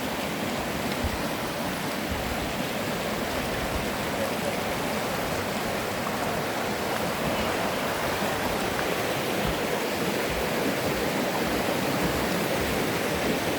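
Steady rush of flowing water, an even hiss that does not let up.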